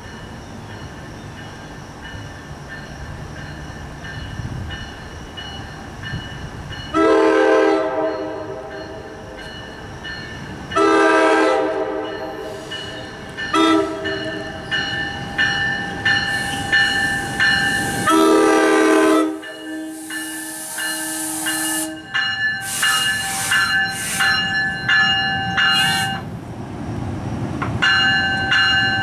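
NJ Transit Multilevel cab car's horn sounding the grade-crossing signal: two long blasts, a short one, then a long one. A bell dings steadily around it, and the train's rumble rises near the end as it rolls in.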